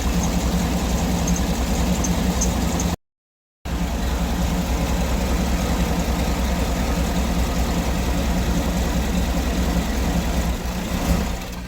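2008 Cadillac Escalade V8 idling steadily while the crankshaft position sensor wiring is wiggled, then cutting out near the end. The stall points to a poor contact in the crank sensor connector.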